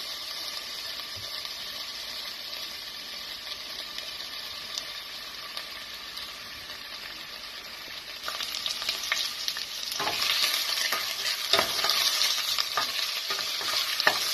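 Sliced onions frying in hot olive oil in a stainless steel saucepan, a steady sizzling hiss. About ten seconds in it grows louder, with scraping and knocks of a wooden spoon stirring the onions in the pan.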